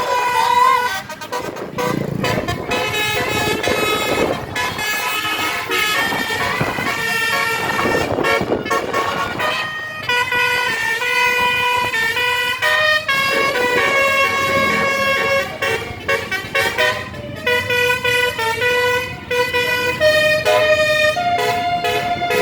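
Bus 'telolet' horn, a Basuri multi-tone air horn, playing a string of melodic toots: held notes that step up and down in pitch, with short breaks between phrases, over road traffic noise.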